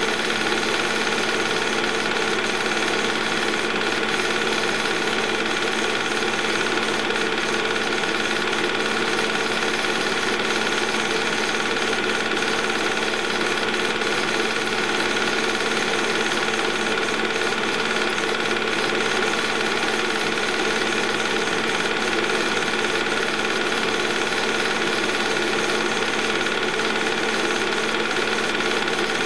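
Movie projector running: a very loud, steady mechanical whir and clatter with a constant hum, unchanging throughout.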